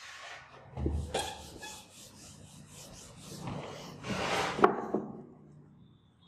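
Whiteboard duster wiping marker writing off a whiteboard in several scraping strokes, with a sharp knock about four and a half seconds in.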